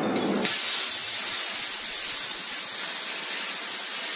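Portable CNC plasma cutter's torch firing and cutting steel plate: a loud, steady hiss of the plasma arc and its air jet, starting about half a second in.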